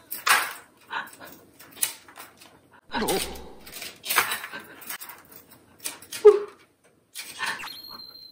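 Irregular scraping and rustling as a cat paws and drags a fishing-rod wand toy, its lure sliding over a padded floor mat. A brief steady high beep sounds near the end.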